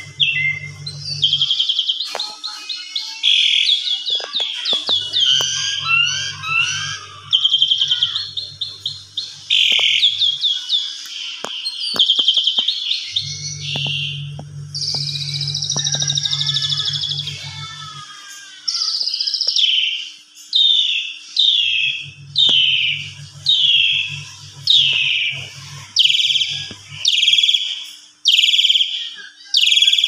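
Caged pied starling (jalak suren) in full, excited song: a varied stream of chattering and whistled phrases, then, from about two-thirds of the way in, a run of loud falling whistles, about three every two seconds.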